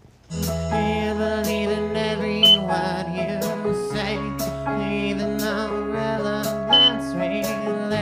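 Live band starts a song about a third of a second in: acoustic guitar, electric bass, drums and keyboard, with a man singing. A handheld smoke detector gives two short high beeps over the music, about two and a half seconds in and again near seven seconds; these are the loudest moments.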